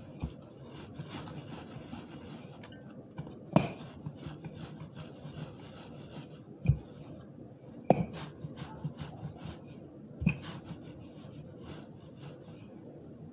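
Wooden rolling pin rolling out bread dough on a countertop: a steady rubbing, broken by a few sharp knocks of the pin against the counter.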